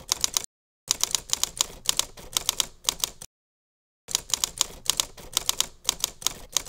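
Typewriter sound effect: runs of rapid key clicks, one short run, then a longer one, then another after two brief stretches of dead silence.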